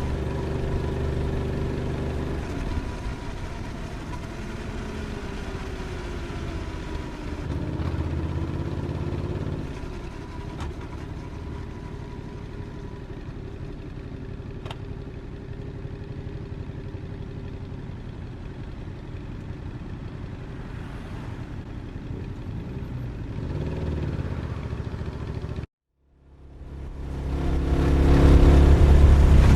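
Motorcycle engine running while riding along, its pitch rising and falling with throttle and speed. It cuts out abruptly about 26 seconds in, then comes back louder, accelerating near the end.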